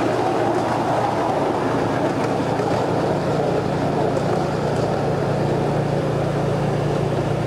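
Steady running noise of a ride-on miniature railway train rolling slowly, with a low hum setting in about three seconds in.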